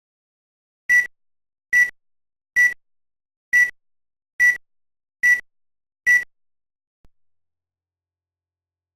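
Seven short electronic beeps, all at one high pitch, a little under a second apart, then stopping.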